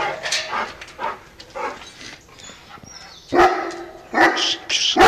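Great Dane barking: a few deep barks, the loudest three close together in the second half.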